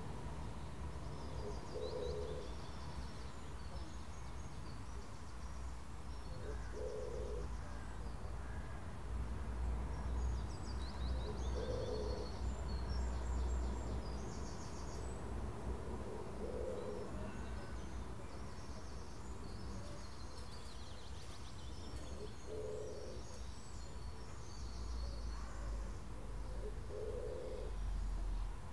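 Garden birdsong: one bird gives a short low call about every five seconds, six times, while small birds chirp and trill high above. A steady low rumble runs underneath.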